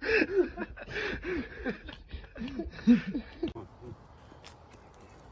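A person laughing hard in short bursts that rise and fall in pitch, breaking off about three and a half seconds in. After that only faint background noise with a few light clicks.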